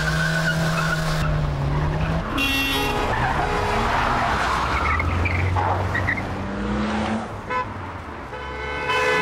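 Car engines revving hard during a chase, rising and falling in pitch as the cars accelerate and change gear, with tyres squealing about two and a half seconds in.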